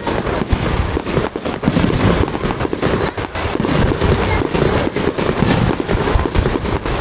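Aerial fireworks display: shells launching and bursting in rapid succession, many bangs and crackles a second with no pause between them.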